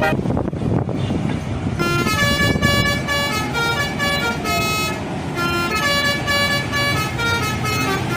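Bus telolet horn, a multi-tone musical horn, playing a quick tune of changing notes. It comes in about two seconds in, after a loud rushing noise.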